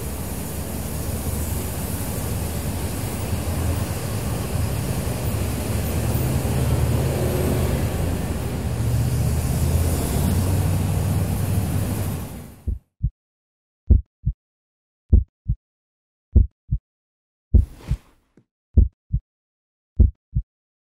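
Traffic on a busy avenue, with cars and a motorcycle passing. About twelve seconds in it cuts off abruptly to silence, and a heartbeat sound effect follows: seven lub-dub pairs of low thumps, a little more than a second apart.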